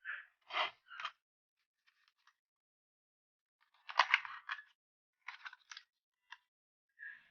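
Handling noises during an unboxing: short rustles and clicks in scattered bursts, loudest about four seconds in.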